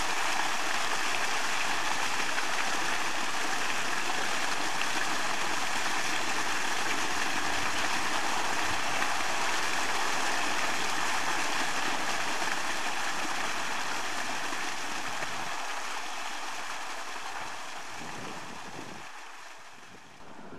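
Steady rush of running water, fading out over the last several seconds.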